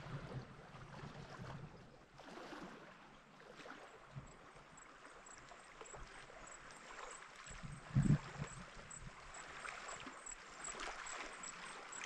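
Small waves lapping and gurgling against the rocks of a lake shore, with a single low thump about eight seconds in.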